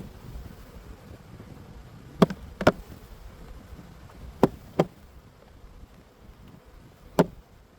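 Honeybees buzzing around an open hive, with a few sharp knocks, mostly in quick pairs.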